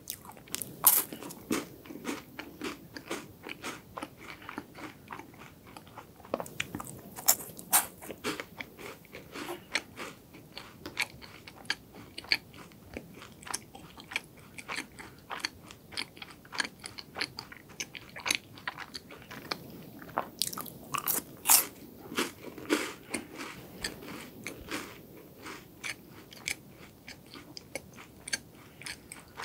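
Crisp crunching of a Loacker Gran Cream Nouazette bar, a chocolate-coated hazelnut cream wafer, being bitten and chewed close to the microphone. A rapid crackle of small crunches runs throughout, with a few louder bites standing out.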